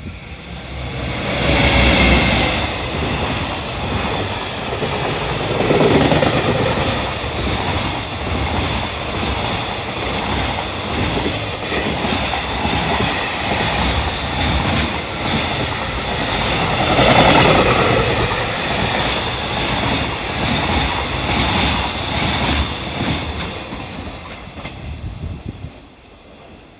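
A JR Freight EF210 electric locomotive hauling a long container freight train runs through the station at speed, close by: a loud rush and rumble of steel wheels on rail with a clickety-clack over the rail joints. High whining tones rise over it near the start and again about seventeen seconds in. The sound fades away in the last couple of seconds as the train clears the platform.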